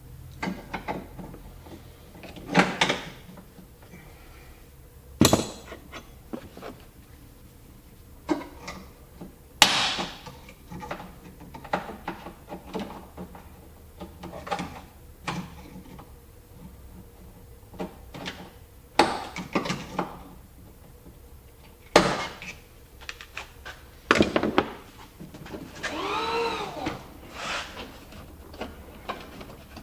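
Irregular plastic clicks, knocks and scrapes as interior trim clips and fasteners on a Jeep Grand Cherokee liftgate are worked loose by hand and with pliers, with a wavering squeak near the end.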